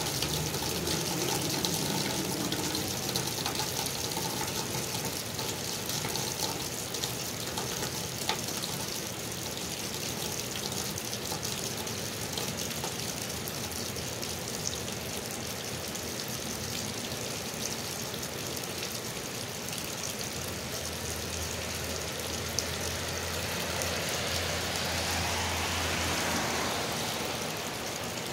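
Rainwater gushing from a drain pipe outlet and splashing onto the ground, with steady rain falling all around. A hiss swells and fades again near the end.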